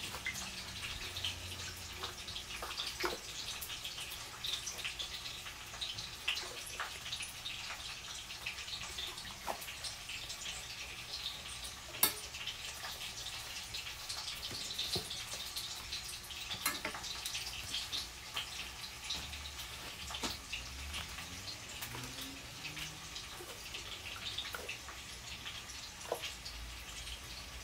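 Meat broth dripping and splashing softly as thin flatbread sheets are dipped into a steel pot and lifted out, over a steady fine crackle with scattered light clicks. A sharper click comes about twelve seconds in.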